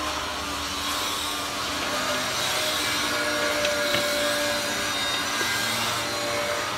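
Hand-held glass cutter's wheel scoring a circle into a glass pane: a steady scratching of the cutter on the glass.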